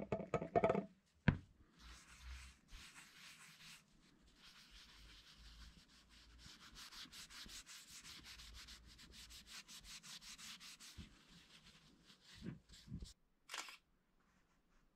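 A small pad rubbing back and forth along the wooden handle of a homemade table tennis racket in quick, even strokes, after a few knocks at the start and before a couple of thumps near the end.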